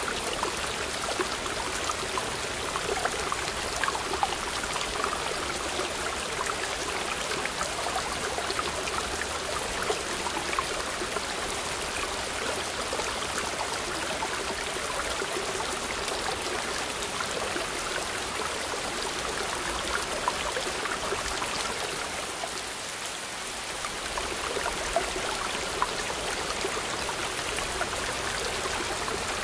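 Rocky mountain stream rushing and splashing over boulders in a small cascade, a steady, even rush of water that eases briefly a little over twenty seconds in.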